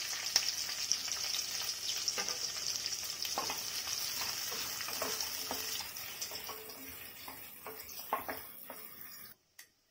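Sliced onions sizzling in hot oil and ghee in a pressure cooker pan, with a wooden spatula stirring and knocking against the pan. The sizzle fades after about six seconds, leaving mostly the spatula's knocks, and the sound cuts off suddenly near the end.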